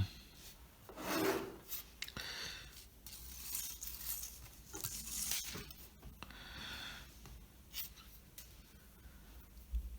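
Faint rubbing and rustling of a length of hookup wire being handled and shaped by hand, with a few small clicks.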